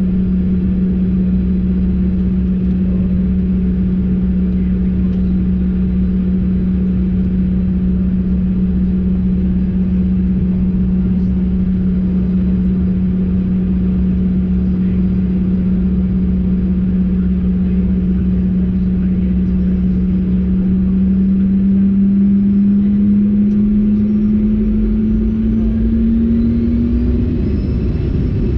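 Cabin sound of a Bombardier CRJ-200 regional jet: its rear-mounted General Electric CF34 turbofans running at low taxi power with a steady hum over a low rumble. About three-quarters of the way through, the hum rises in pitch and a higher whine climbs as the engines begin to spool up for takeoff.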